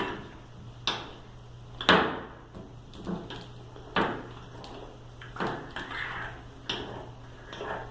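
Slime mixture being stirred in a plate: a utensil scraping and knocking against the plate in short strokes, about one a second, over a low steady hum.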